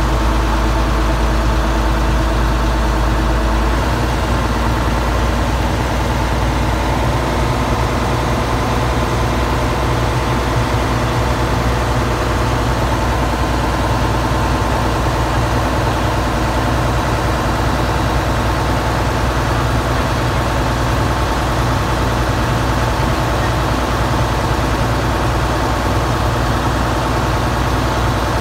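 Ferry boat's engine running steadily and loud, with a deep, constant hum that eases slightly about four seconds in.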